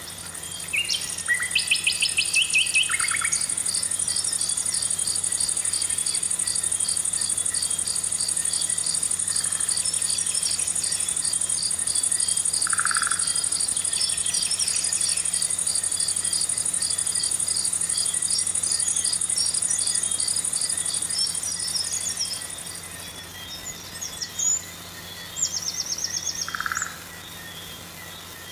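Insects and birds calling outdoors: a steady high-pitched buzz with quick chirps repeating a few times a second, and a few short bird calls over it. The buzz stops near the end, leaving scattered chirps.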